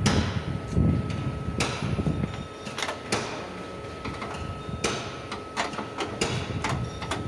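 Body-shop work noise: scattered sharp knocks and clicks, bunched together about five seconds in, over a faint steady high whine, with a low rumble in the first couple of seconds.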